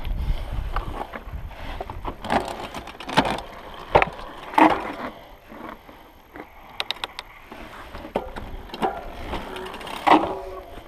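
Handling noise from a helmet-mounted action camera and a mountain bike: irregular knocks, scrapes and rubbing, with a quick run of clicks about seven seconds in and a louder knock near the end.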